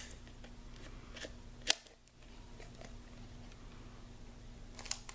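Small scissors snipping through cardstock stuck to a foam adhesive sheet: quiet snips, with one sharper snip about a second and a half in and a few more near the end.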